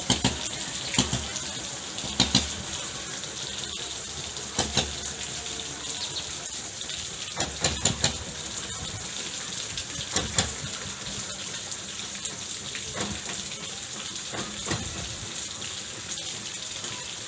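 Rain falling on a tent: a steady hiss of rain with scattered louder drops tapping on the fabric every second or few seconds.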